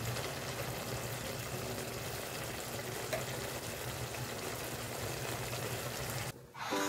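Saucy beef and vegetable stir-fry sizzling and simmering in a wok: a steady bubbling hiss with a low hum under it. It cuts off about six seconds in, and ukulele music starts near the end.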